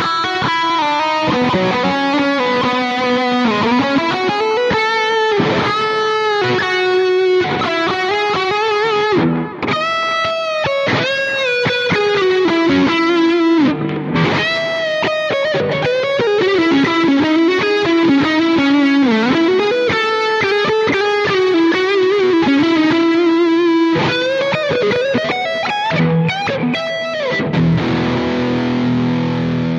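Electric guitar played through a NUX MG-100 multi-effects processor on its '1D Lead' preset: a distorted single-note lead line with string bends and vibrato. Near the end it settles on a held low chord.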